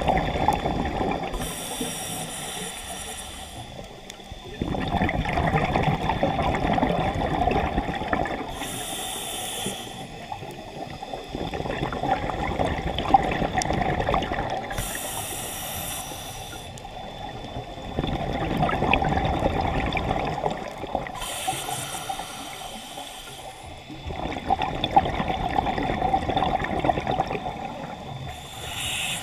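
Scuba breathing through a regulator, heard underwater: a hissing inhalation followed by a longer rush of exhaled bubbles, repeating about every six or seven seconds.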